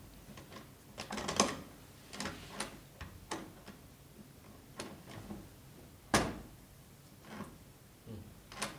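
Sparse light clicks and knocks, a few a second apart, the sharpest about six seconds in.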